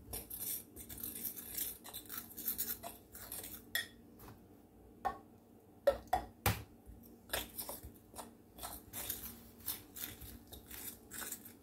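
Spoon stirring and scraping dry baking mix and water in a glass bowl, with irregular clinks and scrapes against the glass and a short pause a little before the middle.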